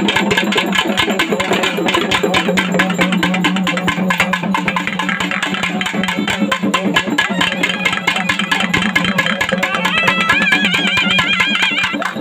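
Loud drum-led music: fast, dense drumming over a steady low drone, with a high wavering melody line coming in about ten seconds in.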